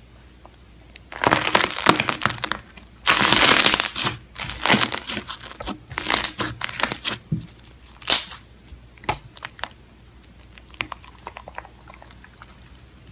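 Slime squeezed and pressed by hand, crackling and popping in dense bursts for several seconds, then thinning to scattered small pops.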